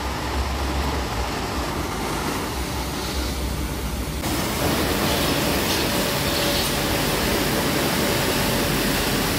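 Automatic car wash running over a car: a steady rush of water spray and washing noise, which shifts and grows a little louder about four seconds in.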